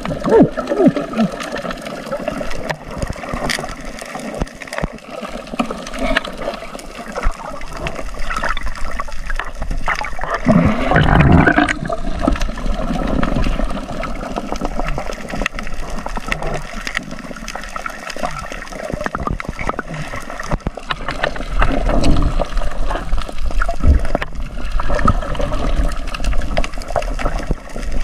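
Water noise heard through an underwater camera: a steady, muffled wash that swells louder about a third of the way in and again later, with scattered sharp clicks.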